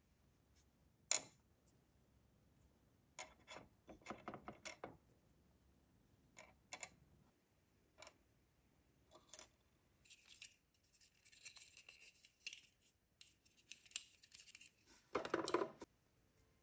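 Small plastic miniature pieces being handled and set down: faint scattered clicks and taps, a light scratchy rubbing of plastic against plastic and fingers about two-thirds of the way in, and a louder rustle of handling near the end.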